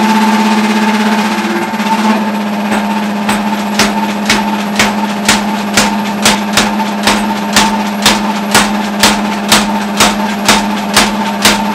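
Power hammer striking a glowing steel block between its dies to forge a hammer-head blank, its motor humming steadily throughout. The blows start about two and a half seconds in, soft at first, then settle into a steady beat of about two strikes a second.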